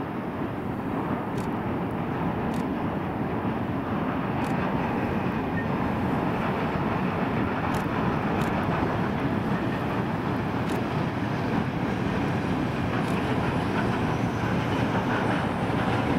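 Long freight train hauled by a three-section locomotive rolling along the line, a steady rumble of wheels on rails heard from high above. It grows louder over the first several seconds as the train draws near, then holds steady.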